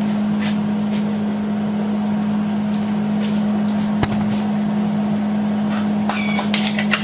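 Electric arc welder running on steel, with an even crackle over a steady hum and a few sharp pops, the strongest about four seconds in and again near the end. The arc is struggling for lack of a good ground connection.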